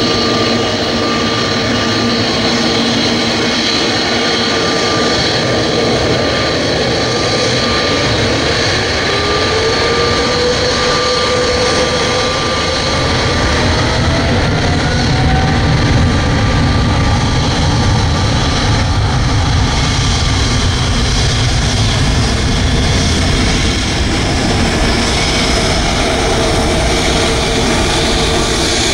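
Boeing 777's twin GE90 jet engines spooling up for takeoff. A whine rises in pitch over several seconds about a third of the way in, then gives way to a deep, steady roar as the airliner starts its takeoff roll.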